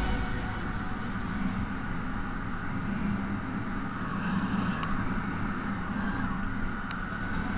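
Motorcycle riding at a steady cruising speed: engine running evenly with road and wind noise rushing past the bike-mounted microphone.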